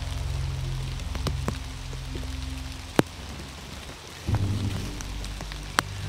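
Rain falling, with sharp drops striking close by, two loud ones about three seconds in and near the end, over background music with a low, slowly changing bass line.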